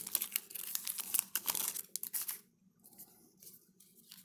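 Wrapper of a 2020 Bowman baseball card pack crinkling as it is torn open and handled: dense crackling for about two seconds, then a few faint rustles.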